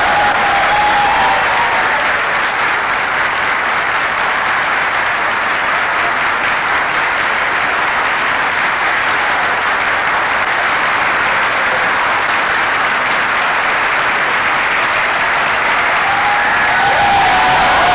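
Audience applauding steadily, a sustained round of clapping from a large hall full of people.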